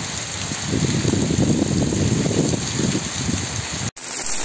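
Heavy rain falling steadily, with water gushing from roof drain spouts onto the street; about a second in, a rougher, lower rush joins. Near the end the sound cuts out for an instant and comes back as rain with a brighter hiss.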